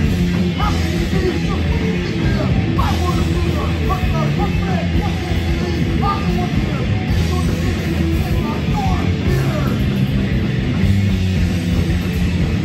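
Crossover thrash band playing live: distorted electric guitar, bass and fast drums, with shouted vocals from about half a second in until about nine seconds.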